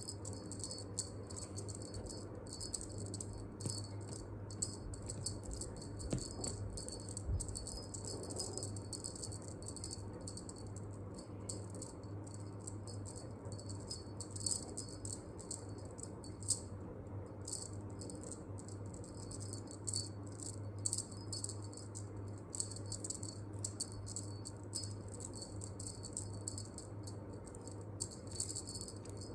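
Jingling cat toy shaken rapidly and almost without pause, a fast bright rattle with only brief breaks, over a low steady hum.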